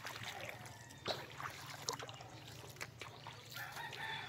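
Bare feet wading through shallow seawater: light, irregular small splashes and trickles.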